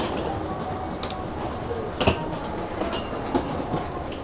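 Inside an AREX airport-railway carriage: the train's steady running rumble, with a single knock about two seconds in.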